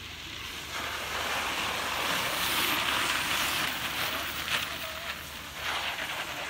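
Cycle speedway bikes passing close by on a loose shale track: the tyre noise of the pack swells over a couple of seconds as the riders come through the bend, then fades as they move away.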